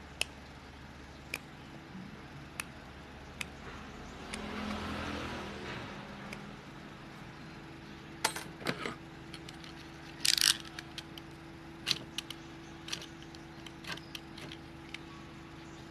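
Scattered small metallic clicks and scrapes as a cutter blade and the starter's steel field-coil frame are worked on the bench, cutting away the coil's old burnt wrapping; the loudest cluster of clicks comes about ten seconds in. Vehicle noise rises and falls around five seconds in, and a steady low hum sets in about seven seconds in.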